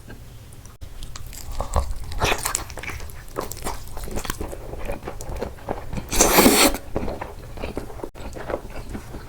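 Close-miked eating: a person biting and chewing, with crisp crunches and wet mouth smacks, and one louder, longer burst about six seconds in.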